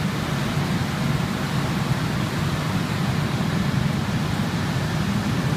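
Stone honing machine running on a basalt slab: a steady low hum with a hiss over it as the abrasive roller works the slab's surface.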